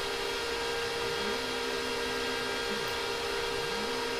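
Stepper motor making two jog moves, each a tone that rises in pitch as it speeds up, holds steady for about a second and a half, then falls away as it stops, the second starting near the end. Underneath, the electronics enclosure's small cooling fan runs with a steady rush and hum.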